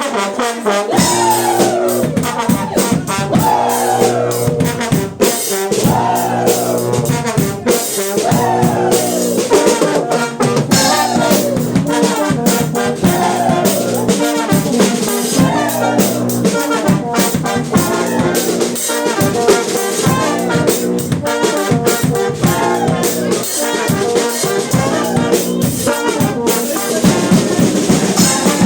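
Fanfare brass band playing live: brass instruments over drums, with a short brass phrase repeated about every second and a half through the first half.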